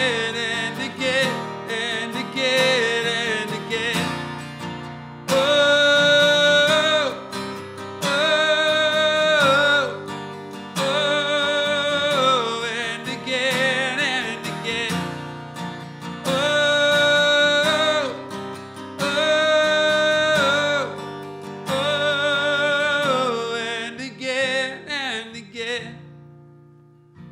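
A man singing with a strummed acoustic guitar, holding long notes over the strumming. Near the end the singing stops and the guitar's last chord rings out and fades.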